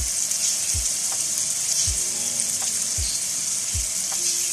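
Oil sizzling in a nonstick wok around spices and ginger-garlic paste, a steady hiss. Under it runs soft background music with a low beat about once a second.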